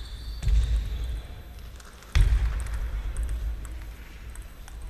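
Table tennis play in a sports hall: three dull thumps against steady hall noise, the second a sharp knock just after two seconds in.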